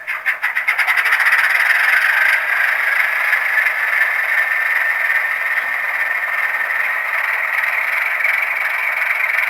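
Tsunami sound decoder in a Baldwin AS616 model diesel locomotive playing its prime mover start-up through a small speaker: quick chugs that speed up over the first couple of seconds, then the engine sound settling into a steady run.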